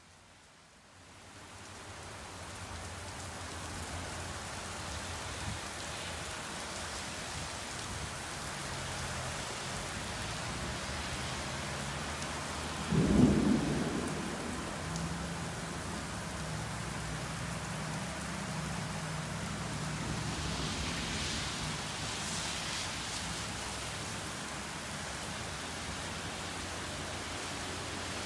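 Heavy thunderstorm rain pouring steadily onto pavement and the awning roof, swelling in over the first couple of seconds. About halfway through a loud clap of thunder breaks out, followed by a low rolling rumble under the rain.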